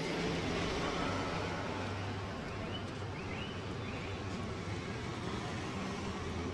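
Steady street traffic rumble with a low hum, and three faint short high chirps near the middle.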